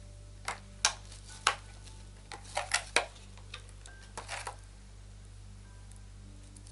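A quick run of sharp clicks and taps, about a dozen in some four seconds, from makeup brushes and their hard plastic packaging being handled on a table.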